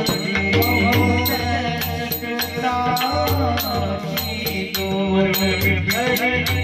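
Bhajan music: a pakhawaj drum keeps the beat under a melodic line, with metallic strikes, likely small hand cymbals, clashing in a brisk steady rhythm, about three to four a second.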